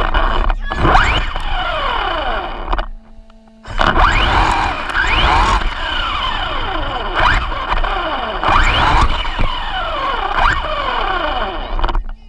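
Onboard sound of a hobby-grade RC car driving on dirt: its motor whines up and down in pitch again and again as it speeds up and slows, over a rough rattle and rumble from the tyres on the gravel surface. The sound drops out briefly about three seconds in.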